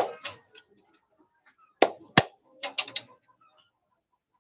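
Hammer strikes on a nail punching holes through a thin tin sheet laid on a wooden board, raising the sharp-edged holes of a homemade grater. One sharp strike at the start, two more about two seconds in, then a quick run of about four light taps.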